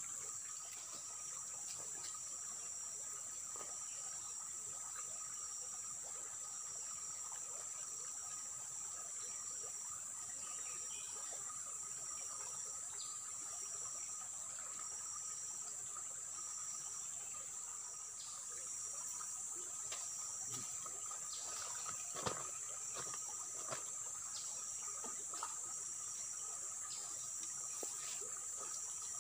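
Steady insect chorus: a constant high-pitched buzz with a second, lower steady tone under it. A few soft clicks and knocks come over it, the sharpest about 22 seconds in.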